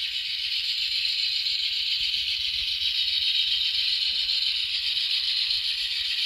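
N scale GE Dash 9-44CW model locomotive running, its LokSound sound decoder playing through a tiny speaker that gives a thin, steady, hiss-like sound with no low end, slowly getting louder.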